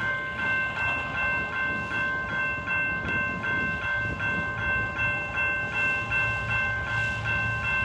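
Railroad grade crossing bell ringing steadily, about two to three strikes a second, while a train rumbles past, the low rumble growing in the second half.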